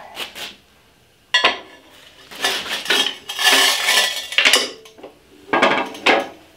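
A heavy steel reel cutting unit from a John Deere 2500 greens mower being handled and set down. There is a sharp metal knock about a second and a half in, then clinking and rattling of its loose metal parts in two spells.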